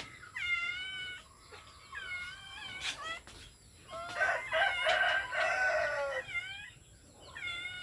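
Chickens calling, with a rooster's long crow of about two seconds starting about four seconds in; shorter calls come before and after it.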